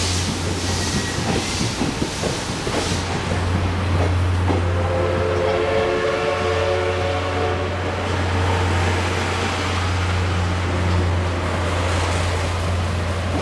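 Passenger coaches rolling slowly out of the station, their wheels clicking over the rail joints, over a steady low drone from the DE10 diesel locomotive at the rear, which passes near the end. From about four and a half to eight seconds in, a long train whistle sounds.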